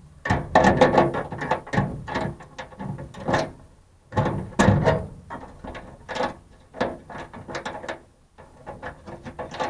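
Irregular metallic clicks, scrapes and rattles as needle-nose vise grips work the retaining nut off a truck-bed toolbox lock and the lock cylinder is worked out of the lid, with short pauses between bouts.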